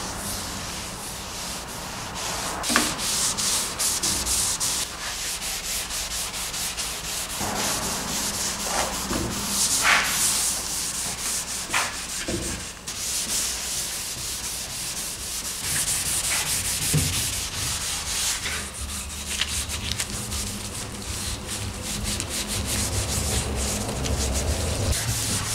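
Cloth rubbing oil finish into bare wood in repeated wiping strokes, a rough swishing hiss, with a few light knocks.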